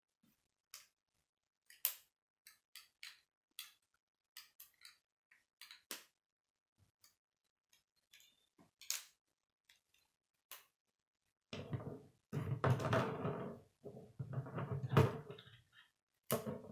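Plastic K'nex rods and connectors clicking as they are snapped together by hand, sharp single clicks every second or so. About two-thirds of the way through comes a few seconds of louder, continuous handling noise as the model is moved about.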